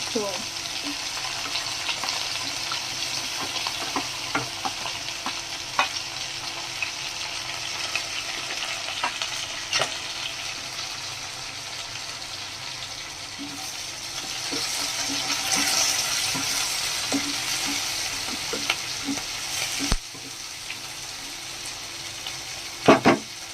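Chopped onion and garlic sizzling in hot oil in a pan while being stirred, with scattered clicks of the stirring utensil against the pan. The sizzle swells in the middle and drops suddenly about twenty seconds in, and a sharp knock comes near the end.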